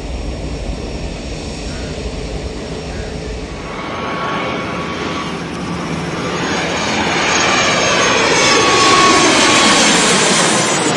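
Steady low rumble of distant jet engines in airport ambience for nearly four seconds, then a jet-aircraft fly-past sound: a rushing noise with sweeping pitch that swells and is loudest near the end.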